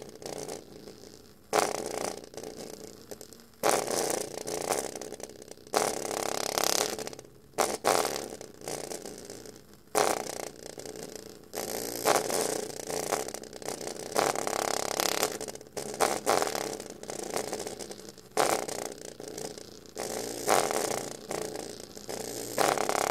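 Tiny full-range speaker driver overdriven with bass from the subwoofer channel of an Acoustic Energy Aego M amplifier, its cone at extreme excursion giving a harsh, buzzing, rattling distortion instead of clean bass. The sound comes in uneven bursts that start abruptly every second or two.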